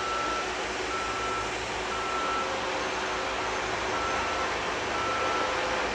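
Freeway construction noise: a heavy vehicle's reversing alarm beeps about once a second over a steady low rumbling of construction machinery.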